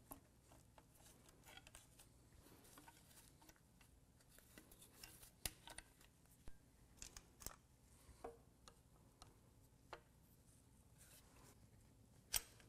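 Near silence broken by faint, scattered light clicks and clinks of metal engine parts being handled, with one sharper click near the end.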